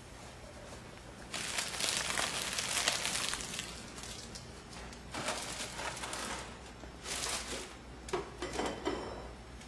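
Rustling and crinkling noises close by, in several bursts: a long one about a second in, then shorter ones in the second half.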